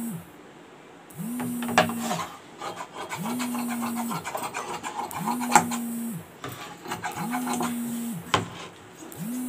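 Fabric shears cutting through lining cloth on a table, with rustling and scraping of the cloth and a few sharp clicks. Behind it a low hum pulses on and off about every second and a half.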